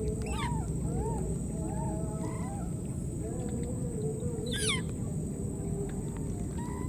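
Animal calls: a string of short calls that rise and fall in pitch, and two quick high squeals that sweep steeply down, about half a second and four and a half seconds in. A steady low rumble of background noise runs under them.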